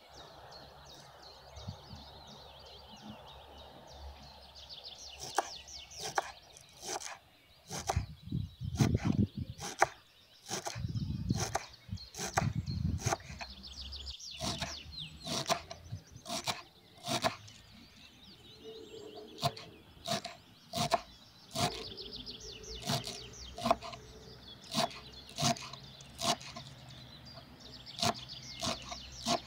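Kitchen knife chopping fresh herbs on a wooden cutting board: a long run of sharp knocks, roughly one or two a second and irregular. Small birds chirp in the background, mostly in the first half.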